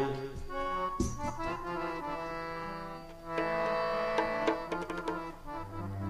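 Harmonium playing held chords over light tabla strokes: a quiet instrumental break between sung lines of Sikh kirtan.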